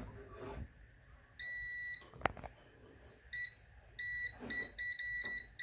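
A multimeter's continuity beeper sounding as its probes touch a good thermal fuse: one short beep, a click, then a run of broken, stuttering beeps as the contact makes and breaks. The beeping shows that the fuse conducts and is intact.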